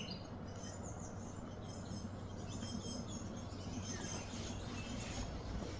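Outdoor ambience of birds chirping on and off over a steady low background noise.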